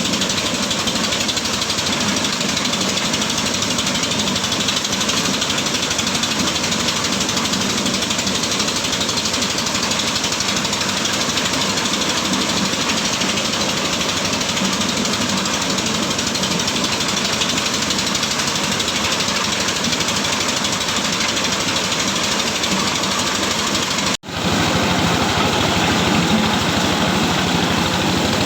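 Engine-driven corn-shelling machine running steadily, a loud continuous mechanical din. It cuts out for an instant near the end, then carries on.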